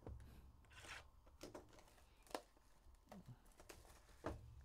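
Faint handling of a cardboard trading-card hobby box as it is opened: a brief rustle of wrapping and a few sharp taps and clicks of the cardboard.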